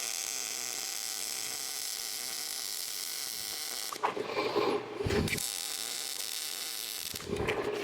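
A small power tool or motor whirring steadily, broken by a short louder noise about four seconds in.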